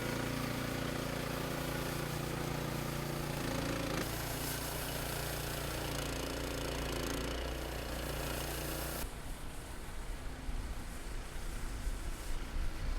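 An engine running steadily with a hum and hiss, which stops suddenly about nine seconds in. After that there is quieter, uneven outdoor street noise.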